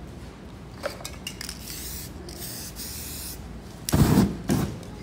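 Aerosol spray-paint can hissing for about two seconds, then two loud deep whooshes near the end as the spray is lit into a burst of flame over the wet paint.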